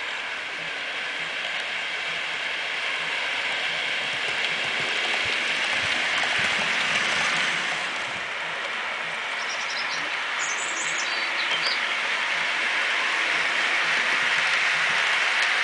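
HO-scale model freight train of container wagons rolling along the track: a steady rattling hiss of small metal wheels on the rails. It dips briefly about halfway through and grows louder toward the end.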